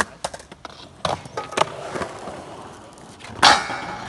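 Skateboard wheels rolling over rough concrete, then about three and a half seconds in the board's trucks clack down hard onto a square steel beam, the loudest sound, and scrape along the metal in a 50-50 grind.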